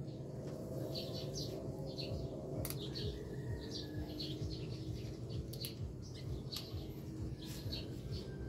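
Small birds chirping, short high calls repeating several times a second, over a steady low background hum, with a few sharp faint clicks.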